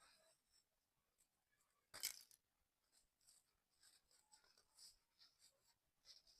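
Packed sand tower crumbling: one sharp crunch about two seconds in, then faint scattered crackles and ticks.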